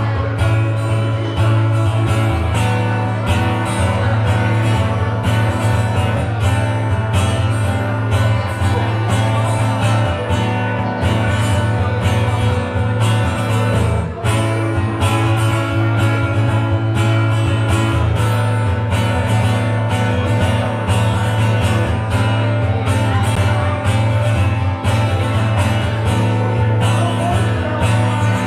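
Live band music with guitar, a strong bass line and a steady drum beat.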